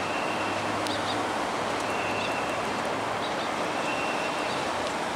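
Steady traffic noise from an elevated road overhead, with a short high beep repeating about every two seconds.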